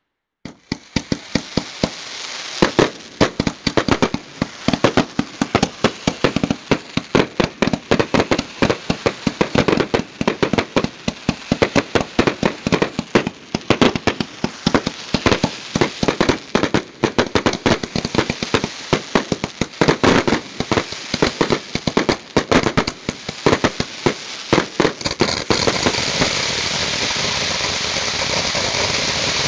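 Consumer fireworks finale: rapid, continuous bangs and pops, many a second, begin about half a second in. Near the end they give way to a steadier crackling hiss as a ground fountain sprays sparks.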